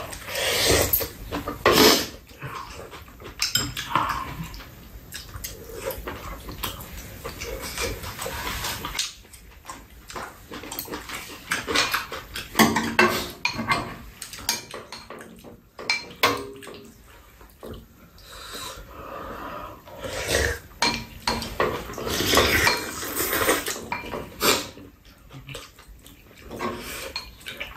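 Ramen noodles slurped and chewed, with spoons and chopsticks clinking and scraping against bowls in short, irregular clicks.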